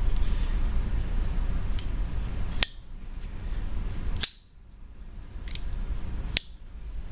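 Strider SnG folding knife being worked in the hand, giving three sharp metallic clicks about two seconds apart as the blade snaps open and shut on its pivot and lock, with a few fainter ticks between them.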